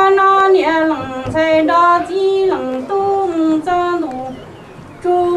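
A woman singing unaccompanied in long held notes that step down in pitch at the end of each phrase, with a short pause near the end before the next phrase begins.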